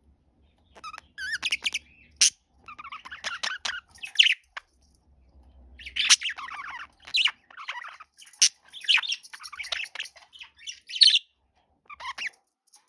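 Budgerigars chattering: bursts of warbling chirps and sharp squawks, broken by short pauses.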